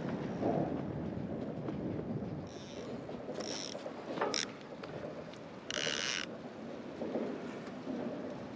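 Fishing reel ratcheting in four short bursts while a hooked fish is being fought, over a steady low rushing noise.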